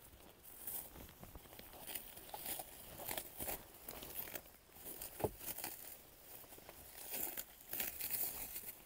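Parcel packaging being handled and opened: irregular crinkling and rustling, with one sharper knock about five seconds in.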